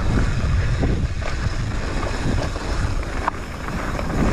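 Wind buffeting a GoPro's microphone as a downhill mountain bike rolls along a dirt track, with small clicks and rattles from the bike going over the ground.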